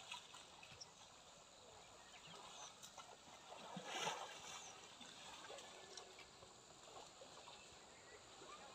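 Near silence: faint outdoor ambience by a shallow river, with one brief louder sound about four seconds in.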